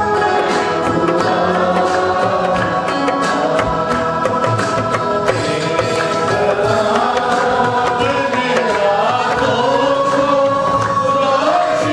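Congregational praise song: many voices singing together over steady held chords, with a hand drum beating and hands clapping in time.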